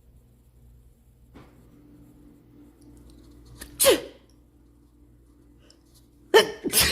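A woman sneezing: one sneeze about four seconds in, then two more in quick succession near the end, each dropping in pitch. The sneezes are set off by clearing out her runny nose.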